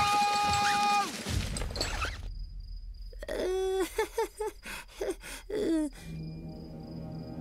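Animated cartoon soundtrack: a long shouted "Go!" held for the first second, a short scramble of noise, then a few short vocal noises. Low, eerie background music with a faint pulsing high tone sets in about six seconds in.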